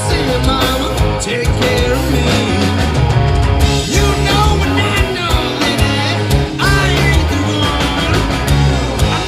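A rock band playing live and loud, with guitar and drums.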